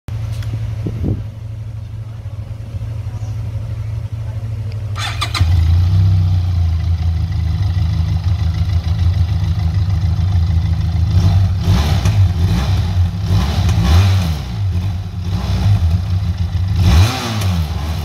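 Benelli TRK 502 X parallel-twin engine idling through its stock silencer; the idle grows fuller and louder about five seconds in. From about eleven seconds on the throttle is blipped several times, the revs rising and falling each time, with a last rev near the end.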